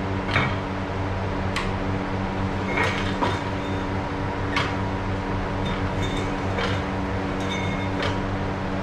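Steady hum of a running workshop machine with a fan, several fixed tones together. Scattered through it are about eight light clicks and knocks of hard items being handled.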